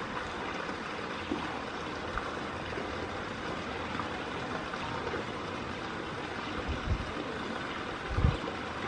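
Steady rush of running water, with two dull low thumps near the end.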